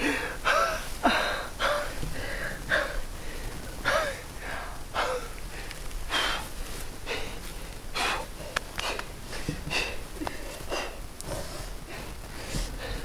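A man breathing hard in a string of short, ragged gasps and groans, about one every half second to second, as if in pain or strain.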